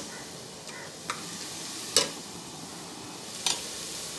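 Onion-tomato masala sizzling in oil in an open pressure cooker while a spatula stirs it. The spatula clicks sharply against the pot three times, loudest about two seconds in.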